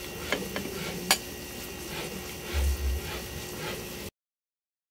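Cooked penne tipped from a bowl into a pan of cream sauce, with a few light clicks and one sharp clack of dishware about a second in, and a couple of low thumps near three seconds. The sound cuts out abruptly about four seconds in.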